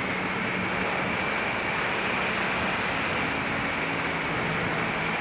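Honda Click 150i scooter's single-cylinder engine running steadily while riding, under a steady rush of wind and road noise on the action camera's microphone.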